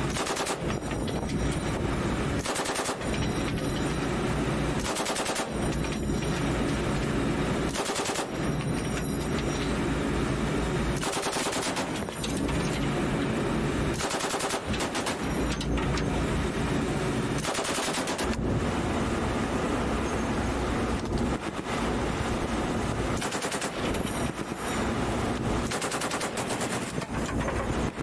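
Short bursts of fire from a pintle-mounted belt-fed machine gun, about nine bursts a few seconds apart, each a rapid string of shots. A steady low rumble runs underneath.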